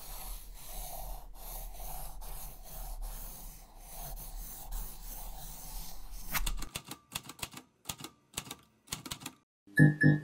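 Logo sound effects: a scratchy pen-scribbling hiss for about six seconds, then a quick run of sharp typewriter key clicks, with a plucked guitar starting near the end.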